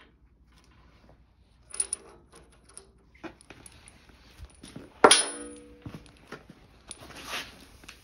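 Knocks and clinks of metal objects being handled, with one loud metallic clank about five seconds in that rings briefly, and a short scrape near the end.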